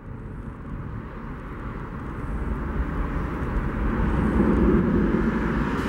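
Boeing 737-700's CFM56-7B turbofan engines at takeoff thrust as the jet lifts off and climbs out, a steady jet rumble growing louder.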